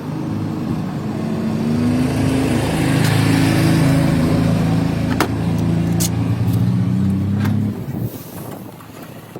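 A motor vehicle engine running with shifts in pitch, growing louder and then cutting off sharply about eight seconds in, with a few sharp clicks near the end.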